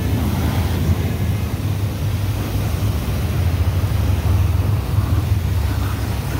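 Pressure washer running steadily: a low machine drone under the hiss of the water jet striking a car's body.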